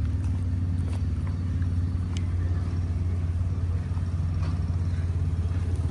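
A vehicle engine running steadily with a low, even rumble, and a few faint clicks over it.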